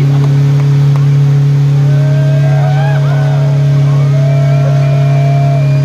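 Volkswagen T25 van's engine held at steady high revs during a tyre-smoking burnout, with wavering high squeals over it. Crowd voices can be heard faintly underneath.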